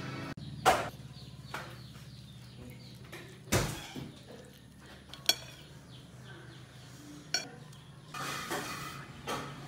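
A metal fork clinks and scrapes against a ceramic plate of fried rice about five times, with a faint steady low hum underneath.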